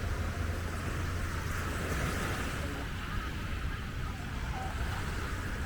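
Wind buffeting the microphone over a steady wash of surf, with faint voices of people nearby.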